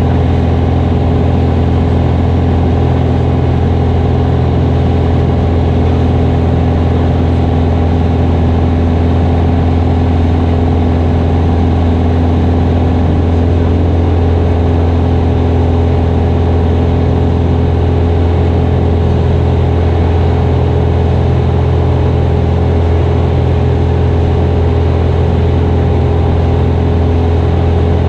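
Mooney single-engine light aircraft's piston engine and propeller droning steadily in cruise flight, heard inside the cockpit: a loud, even low drone that does not change.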